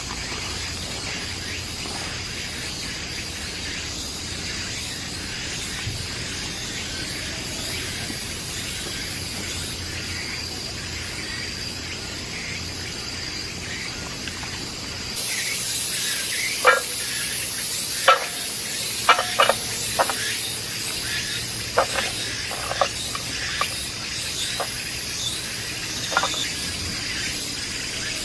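Insects, crickets or cicadas, droning steadily at one high pitch. About halfway a hiss sets in over them, broken by irregular sharp clicks and knocks.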